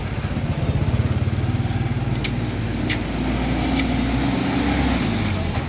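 An engine running steadily with a low hum, its pitch rising a little and holding about halfway through, with a few sharp knocks over it.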